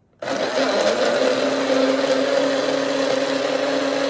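Single-serve personal blender switched on suddenly about a quarter second in, then running steadily at one pitch as it blends ice cream and milk into a milkshake.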